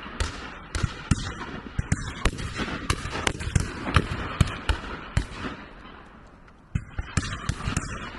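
Shotguns firing at driven partridges from several guns along the line: many sharp, irregularly spaced shots, with a brief lull about two-thirds of the way through.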